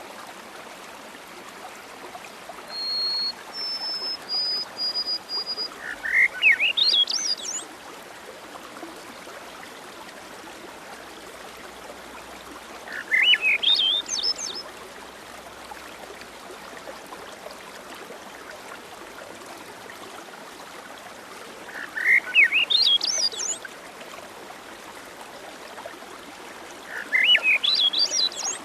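Steady rain, with a songbird singing a short phrase of notes rising in pitch four times, and a run of short high whistled notes about three seconds in.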